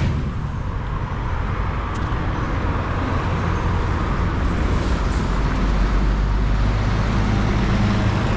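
Road traffic passing, with a concrete mixer truck's diesel engine growing louder over the last few seconds as it draws near.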